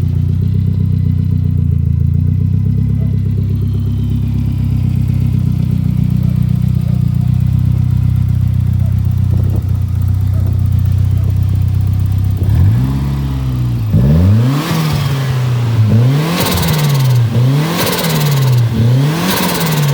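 Saab 900i's four-cylinder engine, fitted with a T04E turbocharger, idling steadily, then blipped five or six times in quick succession past the middle. On the later blips a rushing flutter from the turbo comes as the throttle is let off.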